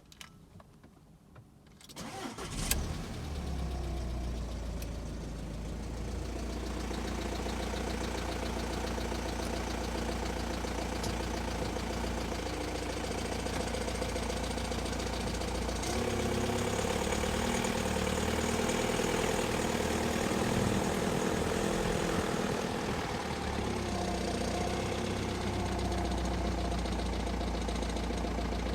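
VW T5.2 2.0 BiTDI four-cylinder diesel cranked and started about two seconds in, then idling, its note shifting around the middle. It carries a rattle that the owner suspects comes from either the dual-mass flywheel or the DSG gearbox.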